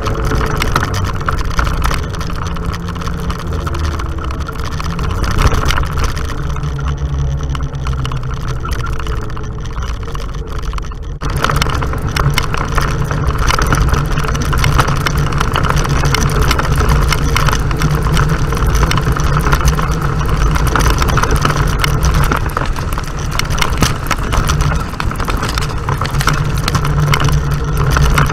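Off-road vehicle engine running steadily under way on a dirt road, with road and wind noise. About eleven seconds in the sound changes abruptly to a louder, rougher stretch of riding.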